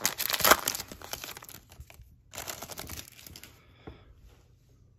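Foil wrapper of a Donruss basketball card pack crinkling in two bursts as it is pulled open and off the cards, followed by a faint rustle of the cards being handled.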